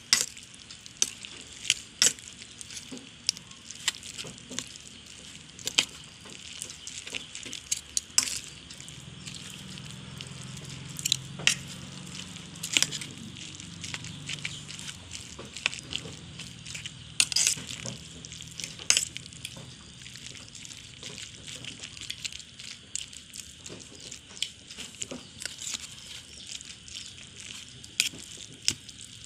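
Metal spoon stirring soaked Maggi noodles with masala and chopped onions in a steel bowl: irregular clinks and scrapes of the spoon against the bowl over a soft, wet stirring noise.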